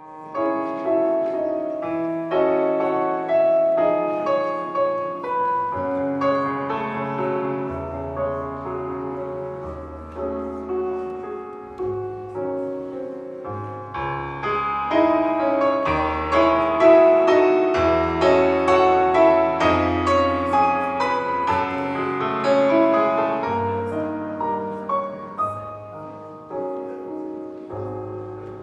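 Piano playing a slow instrumental introduction to a song, with held bass notes, getting quieter over the last few seconds.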